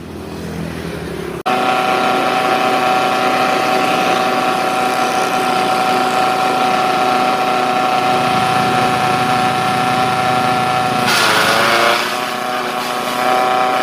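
Grass chopper machine running at a steady high speed, a loud even whine with many overtones that comes in suddenly about a second and a half in. About eleven seconds in a burst of rough noise passes through it and the pitch briefly dips before it settles again.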